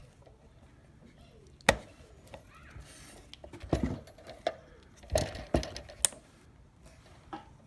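Sharp clicks and knocks of a pneumatic roofing nailer's metal parts being handled and fitted back together during a trigger valve replacement. The loudest click comes a little under two seconds in, followed by a cluster of taps around four seconds and several more around five to six seconds.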